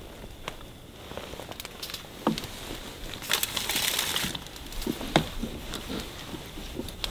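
Light clicks and knocks of things being handled, with a rustling hiss about a second long near the middle.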